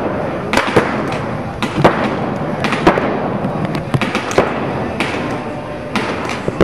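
Paintball markers firing in irregular sharp pops and short strings, several a second at times, over a steady din that hangs in the indoor hall.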